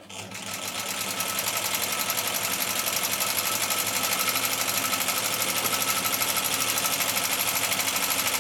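Chaika-134A household zigzag sewing machine running at speed, stitching a zigzag test seam after repair and stitch adjustment. It is a rapid, even clatter of needle strokes that picks up speed over the first second, then holds steady.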